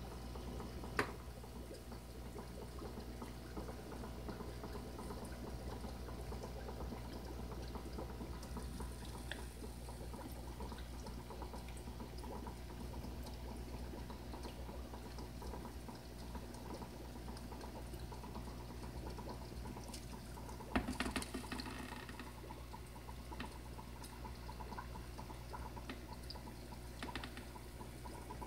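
Aquarium filter running, with a steady low hum and a constant trickle of water. A sharp click about a second in and a short cluster of clicks about three quarters of the way through.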